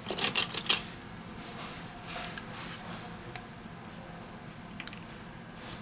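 A quick cluster of sharp clicks and taps in the first second, then softer scraping and a few separate ticks, as a metal pry tool works at the metal frame and internal covers of an opened Huawei Honor 8 smartphone.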